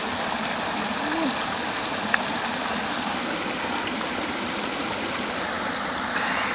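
Shallow rocky stream flowing steadily, with one short sharp click about two seconds in.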